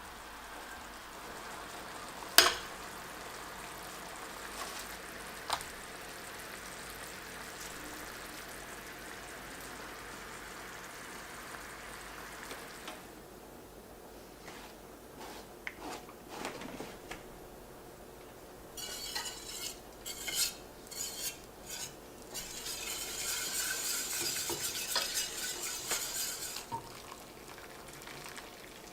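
Food sizzling in a pan with a steady hiss, with a sharp utensil knock about two seconds in and another a few seconds later. Later a utensil stirs and scrapes in the pan, with clinks, over a brighter sizzle.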